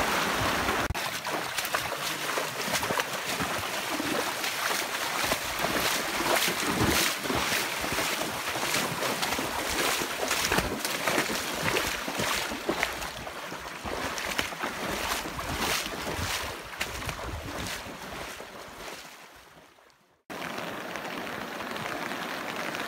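Wind buffeting the microphone over irregular running footfalls on a wet, rocky trail, with the handheld camera jolting. After a sudden cut about 20 seconds in, a steady rush of fast-flowing floodwater.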